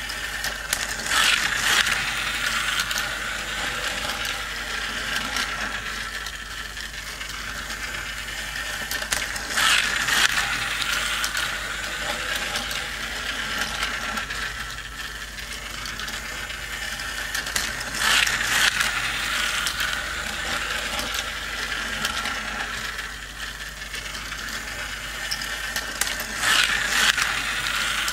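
Motorized toy racing track running, its small plastic cars driven around the loop by a geared mechanism with a steady mechanical whirr. It gets louder four times, about every eight and a half seconds, as the cars come round past the front of the track.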